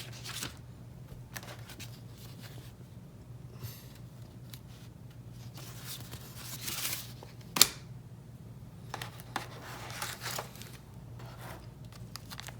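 Phone box contents and packaging being handled: light rustling and scraping of cardboard and plastic, with one sharp click about seven and a half seconds in.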